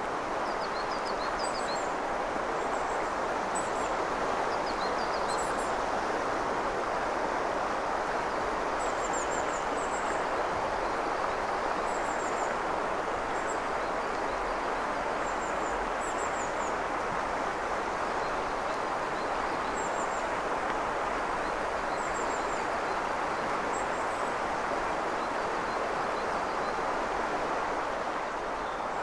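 Steady rush of a clear mountain river flowing over stones, with a small bird giving short, high chirps every second or two.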